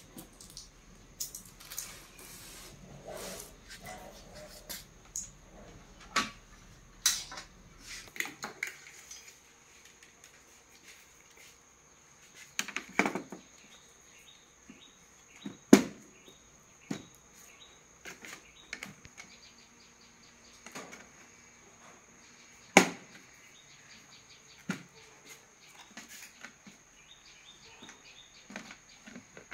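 Scattered clicks and knocks of hands working on the opened back of a flat-screen TV: cables and connectors being handled and plugged into the circuit boards, with a few sharper knocks against the metal back panel. A faint steady high-pitched tone sits underneath.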